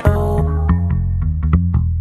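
Background music: a heavy bass line under a quick, steady beat of sharp percussive hits, with a busier, brighter passage cutting out in the first half second.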